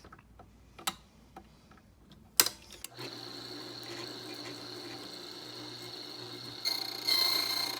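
A few clicks and a sharp snap as a key cutting machine is set up, then about three seconds in its motor starts and runs steadily with a high whine, growing louder and rougher near the end as the cutter works the key blank.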